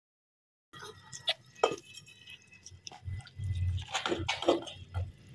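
Spoon scooping moist radish chutney out of a plastic container into a glass bowl: soft wet squelches and light clicks of the spoon against the container, with a few dull bumps of handling near the middle.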